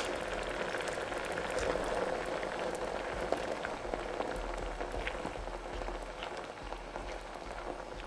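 Food cooking, sizzling and bubbling steadily with many small crackles and pops, fading slightly toward the end.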